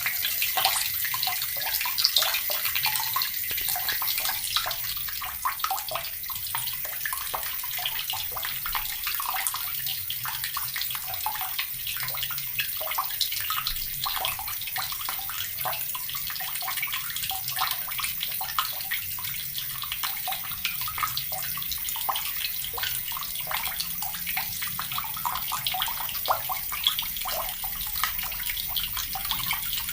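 Water running steadily from a tap and splashing continuously into the water below.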